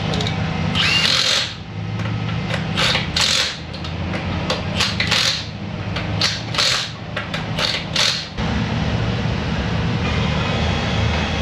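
Workshop tool noise: about a dozen short, irregular bursts over a steady low hum, stopping about eight seconds in.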